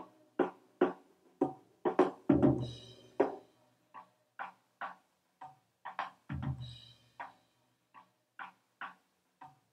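Recorded drum track playing back from the floor tom microphone, which picks up a lot of snare: a steady beat of short snare hits at about two a second, with a deep floor tom hit about two seconds in and again about six seconds in. The snare bleed and the tom's tone are being shaped with EQ as it plays.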